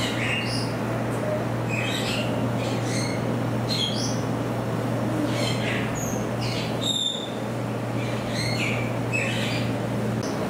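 Degus chirping and squeaking: short high calls, some falling in pitch, about one or two a second, over a steady low hum that stops near the end.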